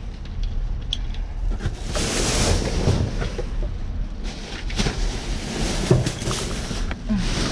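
Plastic trash bags rustling and crinkling as they are shifted about in a dumpster, with a few light knocks, over a steady low rumble of wind and handling noise on the microphone.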